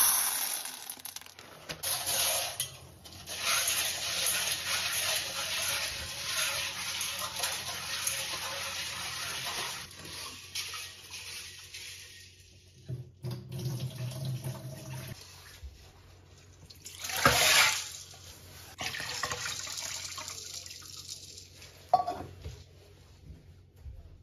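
Dried soybeans rattle into a stainless steel bowl at the start. Then a kitchen tap runs into the bowl as the beans are rinsed, stopping and starting a few times, with a brief louder gush about two-thirds of the way through.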